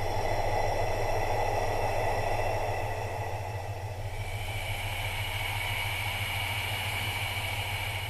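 Recorded breath sounds: a long, airy breath for about the first three seconds, then quieter breathing, over a steady low hum and faint, steady high whistling tones.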